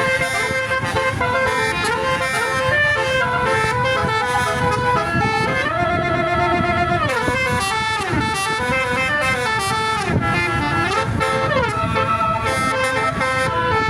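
Indonesian bus telolet horn, a set of musical air horns, playing a continuous quick melody of changing notes, with several notes sliding down in pitch.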